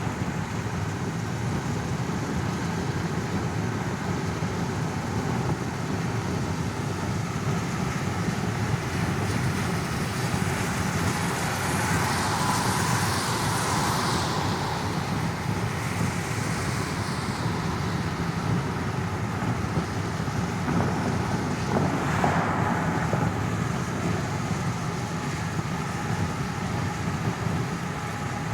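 Inside a car's cabin: the steady low rumble of a car on the road. A hissing swell rises and fades about twelve seconds in, and a shorter one comes around twenty-two seconds.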